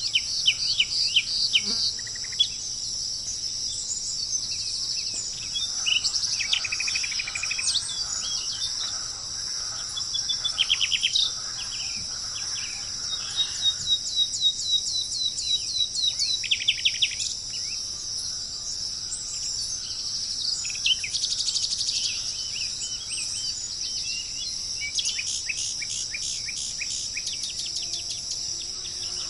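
Wild birds calling in repeated bursts of short, quick down-slurred notes, over a steady high-pitched insect chorus of crickets.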